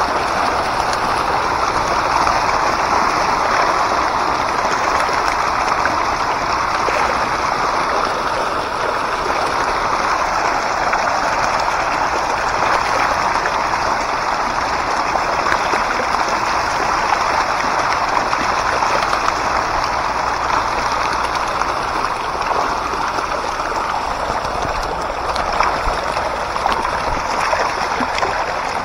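A dense crowd of pond fish thrashing at the water's surface in a feeding frenzy, making a steady, churning splash.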